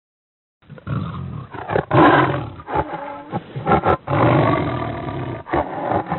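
A big cat roaring: a run of deep roars and grunts, beginning just under a second in after a short silence.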